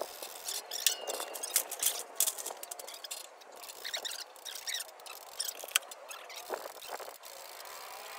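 Hand-cranked material lift's winch being wound to raise a heavy glulam beam: a string of irregular metallic clicks and clinks, with a brief squeak about a second in.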